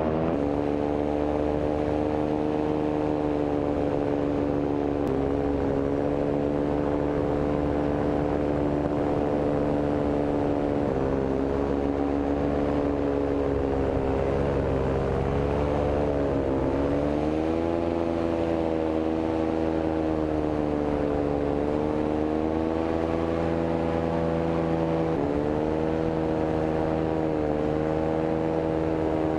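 Paramotor's two-stroke engine and propeller running steadily in flight, its pitch dipping briefly and coming back up several times as the throttle eases off and opens again.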